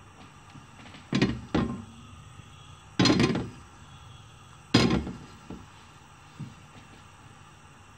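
A non-stick frying pan clunking on the metal grate of a gas hob as the burner under it is lit and the pan is lifted, tilted and set back down: four sharp clunks in the first five seconds, then a couple of softer knocks.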